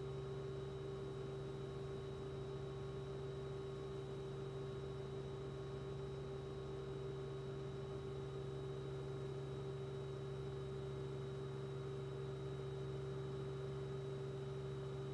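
Steady hum made of a few constant tones over faint hiss, with no other events.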